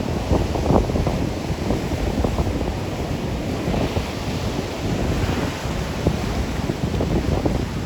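Rough storm surf crashing and washing on the beach, a steady roar with a louder hissing wash midway, while wind buffets the microphone in uneven gusts.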